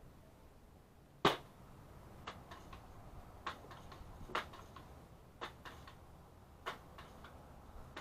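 Scattered sharp cracks of gunshots from other shooters on the range: one louder crack about a second in, then several fainter ones spread through the rest.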